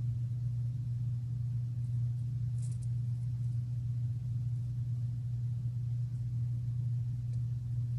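A steady low hum, with one faint click about two and a half seconds in.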